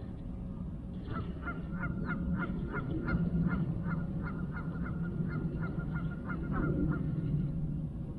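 Geese honking in a rapid series, about two honks a second, starting about a second in and stopping near the end, over a low steady rumble.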